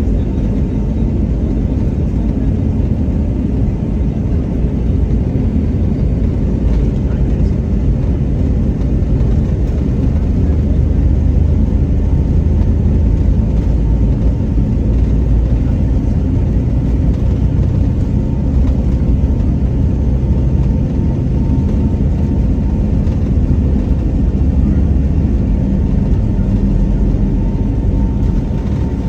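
Airliner engines during takeoff: a loud, steady low rumble with a faint steady whine above it, building slightly about ten seconds in.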